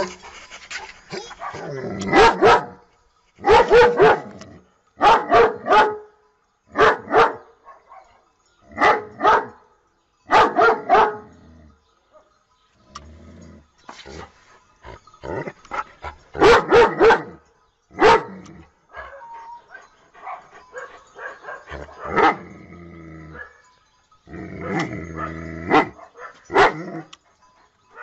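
German Shepherd dog barking: about a dozen loud single barks, one to two seconds apart, with two short lulls in the middle.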